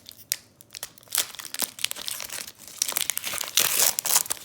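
Foil wrapper of a Pokémon Sword & Shield booster pack crinkling and tearing as it is opened, a busy run of sharp crackles that is loudest about three and a half seconds in.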